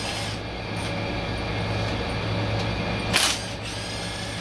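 Red Milwaukee Fuel cordless power tool running briefly once, about three seconds in, spinning out a valve body bolt on a Ford 10R80 transmission. A steady low hum runs underneath.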